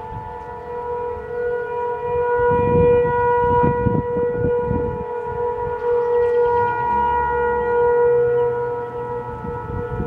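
Federal Signal 500 civil defense (tornado) siren sounding a steady tone during a test, swelling louder in the middle and easing off again near the end.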